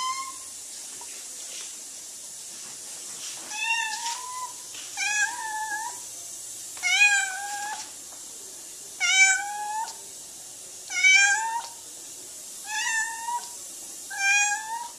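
Blue point Siamese cat meowing loudly and insistently, about eight separate drawn-out meows, one every second and a half to two seconds.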